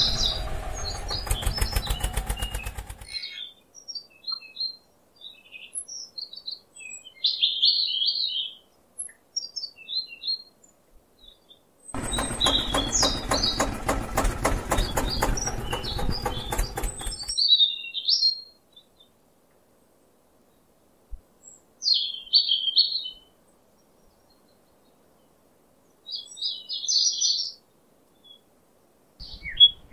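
Small electric motor of a handmade toy tractor running with a fast, even buzz, fading out by about three seconds in and running again for about five seconds in the middle. Birds chirp in short high calls through the quiet stretches between.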